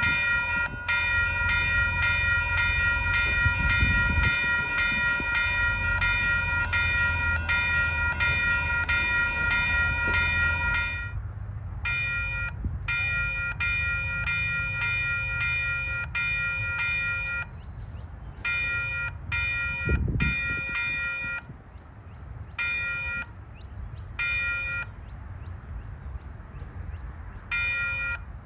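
Malfunctioning electronic railroad crossing bell dinging rapidly. It rings steadily for about eleven seconds, then cuts out and restarts in irregular bursts of a second or several seconds, the fault that makes it decide its own ring rate. A low rumble runs under the first part of the ringing.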